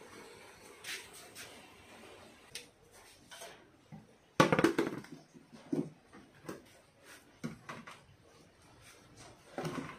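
Hollow knocks and clatter of a large plastic plant pot being handled and set down on a wooden table, the loudest cluster about four seconds in, with lighter scattered taps before and after.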